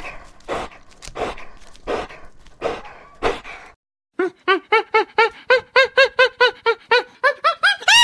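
A husky dog's breathy huffs, about one every two-thirds of a second, then after a short pause a fast run of high, rise-and-fall calls from gelada monkeys, about four a second, the last few higher and louder.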